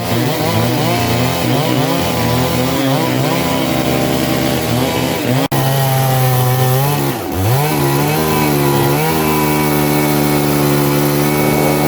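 Chainsaw running at high revs while cutting wood. Its pitch sags under load and recovers a few times, and the sound breaks off for an instant about halfway through.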